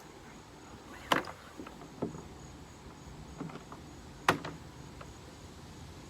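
Handling knocks from a plastic kayak and its scupper cart: two sharp clunks about three seconds apart, with a few lighter knocks between.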